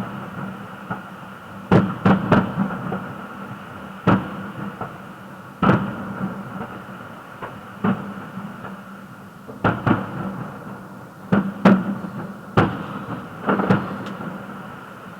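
Fireworks shells bursting overhead: about a dozen sharp bangs at uneven intervals, some in quick pairs, each trailing off in a short echo.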